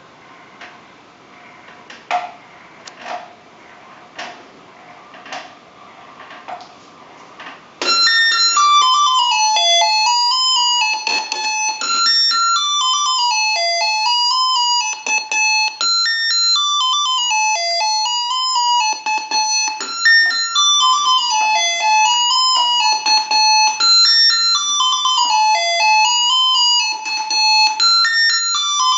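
Faint plastic clicking about once a second, then about eight seconds in a loud electronic alarm melody from an LED clock cube starts: simple stepped beeping tones that play a short tune over and over.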